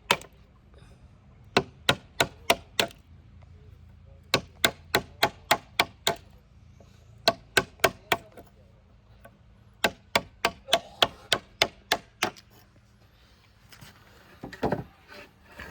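Repeated sharp strikes of a tool on timber, in quick runs of four to eight blows at about three a second with short pauses between runs, as a wooden frame is built. A rougher, duller knock comes near the end.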